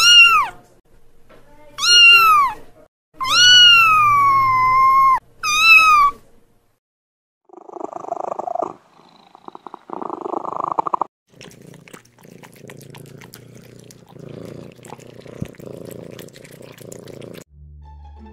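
Kitten meowing four times in the first six seconds, the third meow long and drawn out, then about ten seconds of quieter, rhythmic purring.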